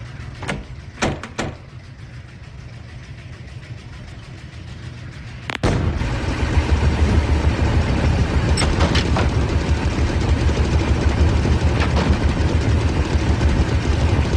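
A few light clicks, then about five and a half seconds in a washing machine starts its spin: a sudden, loud, steady mechanical rumble with a fast rattle.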